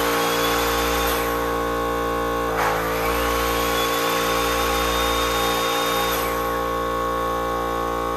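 Induction motors, an air compressor and an air conditioner, started together off a 24 V LiFePO4 battery and inverter. A steady machine hum with many tones runs throughout, and about two and a half seconds in a motor spins up with a rising whine that levels off, then fades about six seconds in. The inverter is carrying both induction loads starting at once.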